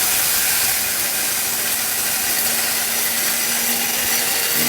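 Electric mixer grinder running at full speed, a steady, loud whirring noise with a faint hum underneath, as it grinds dry chana dal into gram flour (besan).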